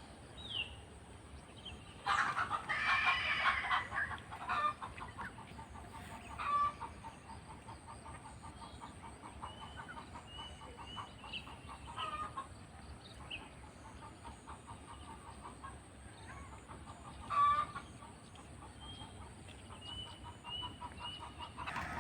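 Chickens calling, with a louder fowl call lasting about two seconds starting about two seconds in, and repeated short high chirps of small birds through the rest.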